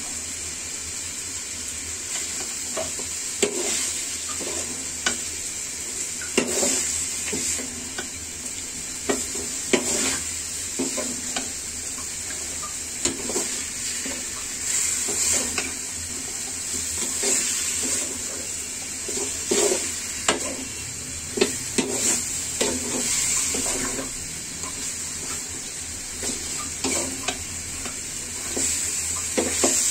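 Spiced chicken pieces sizzling in hot oil in an aluminium pan, with a steel spatula scraping and knocking against the pan at an irregular pace as the meat is stirred and browned (kosha) for curry.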